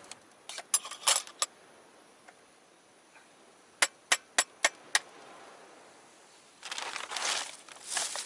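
Small hard objects being handled: a few light clicks and clinks, then a quick run of five sharp clicks, followed near the end by a rustling, scraping noise.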